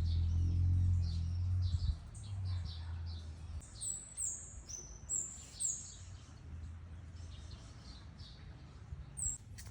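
Birds chirping: a run of short, repeated high calls, with a few longer, higher notes near the middle. A low rumble runs under the first few seconds, then drops away.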